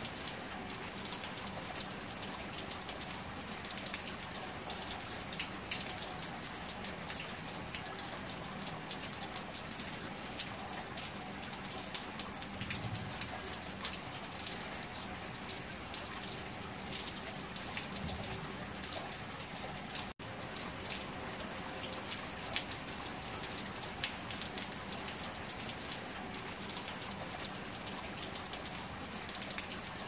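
Heavy rain pouring onto concrete paving and bare ground: a dense, steady hiss of splashing drops, full of tiny individual drop impacts. It cuts out for an instant about two-thirds of the way through.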